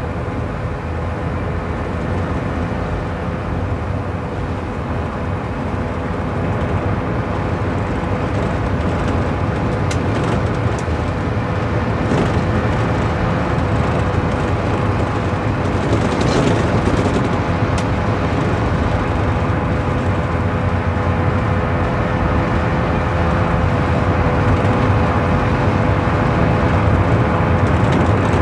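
Engines of a motorcycle, an off-road car and a truck driving over rough desert ground, a steady running noise that grows gradually louder as they come closer.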